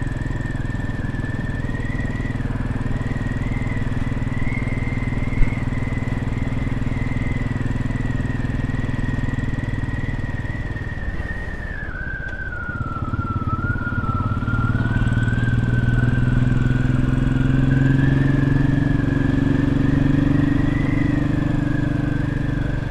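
Royal Enfield Classic 500's single-cylinder engine running under way. It eases off about eleven seconds in, then pulls harder and louder from about fourteen seconds. A single sharp click comes about five seconds in.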